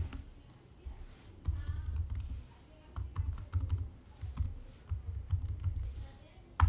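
Typing on a computer keyboard: irregular runs of key clicks over dull low thumps, with one louder keystroke near the end.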